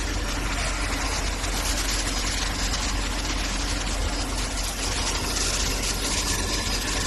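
Steady din of factory machinery: a low hum under a dense, even clatter that does not change.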